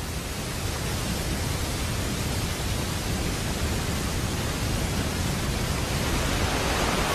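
Steady rushing noise with a deep rumble underneath and no distinct tones, slowly growing louder.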